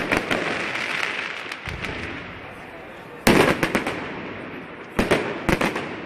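Fireworks: crackling shell bursts fade over the first two seconds. A loud bang with a quick cluster of crackles comes about three seconds in, and two more sharp bangs follow near the end.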